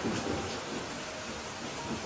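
Steady rain falling, with a low rumble of thunder.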